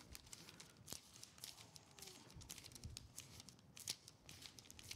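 Faint rustling and light flicking of thin Bible pages being turned to find a passage.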